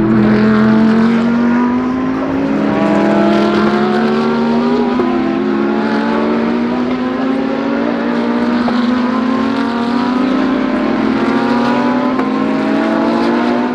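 GT3 race car engine accelerating, its note climbing slowly and steadily, with a short gear change about two seconds in. The sound cuts off suddenly at the end.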